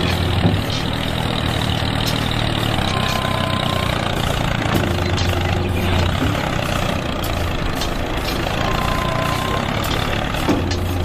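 Engine idling steadily with a low hum. The same stretch of sound repeats about every six seconds, like a looped idle recording.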